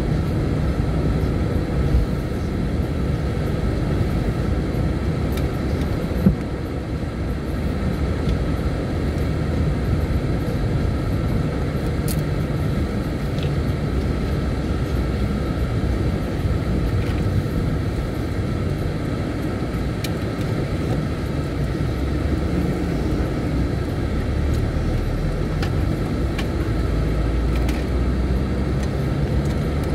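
Steady rumble of a road vehicle driving, with a single short knock about six seconds in and a few faint clicks.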